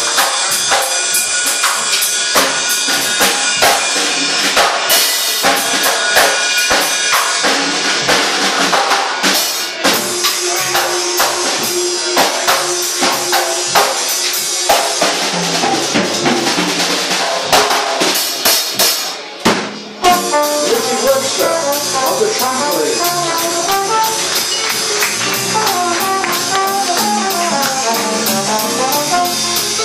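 Live jazz band: the drum kit plays busy strikes and cymbals through the first two-thirds, then after a brief break the brass comes in with the melody, trombone among it.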